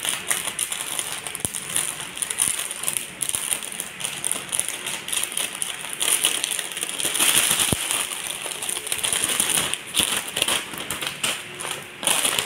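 Clear plastic packaging bag crinkling and rustling in a dense, irregular crackle as hands handle it and pull a scarf out of it.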